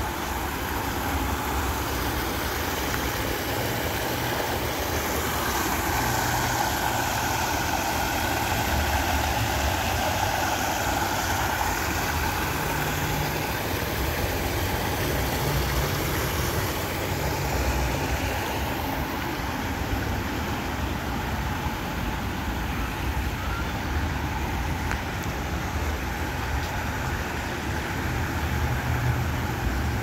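Steady rush of water from a small artificial waterfall splashing into a shallow pond, with a low rumble underneath.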